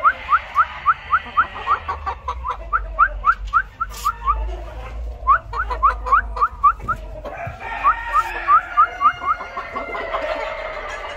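A bird giving fast series of short rising chirps, about five a second, in four bouts with short pauses between them, over a low steady hum.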